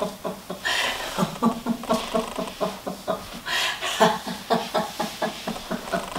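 Free laughter in a laughter-yoga session: a long run of rapid "ha-ha-ha" laughs, several pulses a second, with brief pauses between runs.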